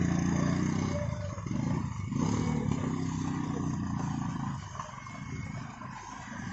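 A motor vehicle's engine running and revving in two spells, then dropping away after about four and a half seconds to quieter street noise.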